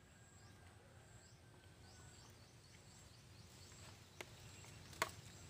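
Quiet outdoor ambience with a row of faint, short high chirps, then two sharp clicks of a metal spoon against a ceramic plate near the end, the second louder.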